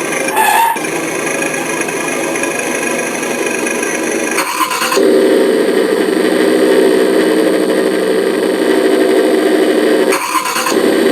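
Simulated engine sound from an RC car's electronic sound module, played through its one small speaker. It runs steadily, breaks off briefly about four and a half seconds in and again about ten seconds in, and comes back louder and deeper each time as the sound or throttle setting changes.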